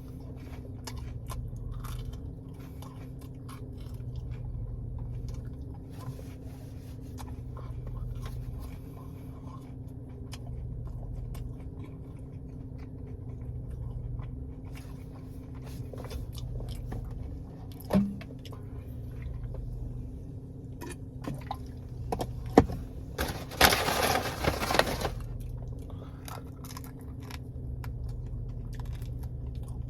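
A person chewing and crunching breaded mozzarella cheese bites close to the microphone, with scattered small clicks from the eating, over the steady low hum of an air conditioner. About two-thirds of the way through there is a sharp click, followed by a loud rustling noise lasting about a second and a half.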